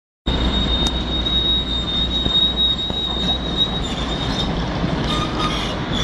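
Volvo 290 excavator's diesel engine running with a failed turbocharger: a steady high-pitched whistle over a loud low rumble, the whistle weakening about four seconds in.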